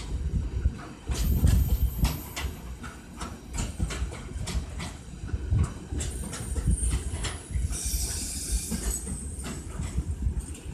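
Double-deck car-carrier wagons of a Sylt Shuttle car train rolling past, wheels clacking over rail joints over a steady rumble. A short high hiss or squeal about eight seconds in.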